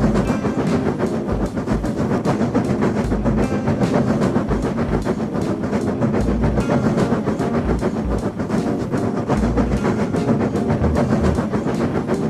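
Train running along the track, its wheels clattering over the rail joints in a steady, fast clickety-clack with a low rumble.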